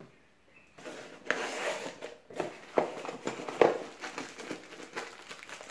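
Rustling and crinkling of a small clear plastic bag being handled, with irregular clicks and scrapes, starting about a second in.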